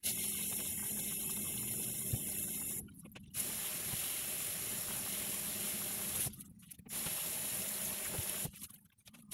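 Kitchen tap running, its water splashing over and through a car intercooler's fins into a stainless steel sink as the intercooler is rinsed of washing-up liquid. The sound breaks off abruptly three times.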